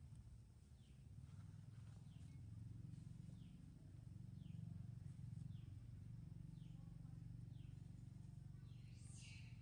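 Faint outdoor ambience: a steady low hum under short, falling bird chirps about once a second, with one louder chirp near the end.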